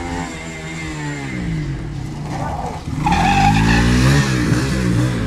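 Motorcycle engine with its revs falling away, then about three seconds in the throttle opens and it gets louder, its pitch rising as it accelerates.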